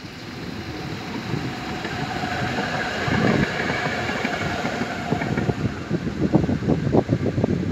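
Brussels MIVB rail vehicle running along the track, growing louder, with a faint steady whine. From about five seconds in its wheels clack rapidly over the rail joints.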